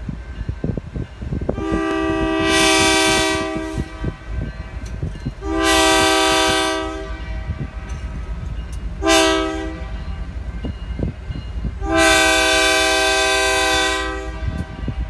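Locomotive air horn sounding several tones at once in the grade-crossing pattern: two long blasts, one short, then one long. The train's low rumble runs underneath.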